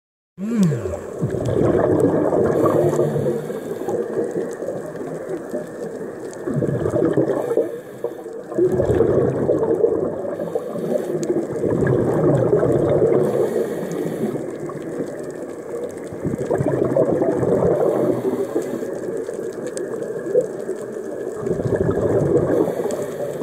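Scuba diver's regulator underwater: bubbling exhaled breath that swells in long bursts with quieter spells between, about one breath every five to seven seconds. A brief falling tone sounds right at the start.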